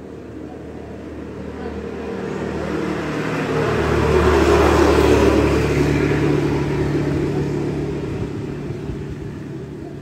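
Motorbike passing by: its engine grows steadily louder, peaks about halfway through, then fades away.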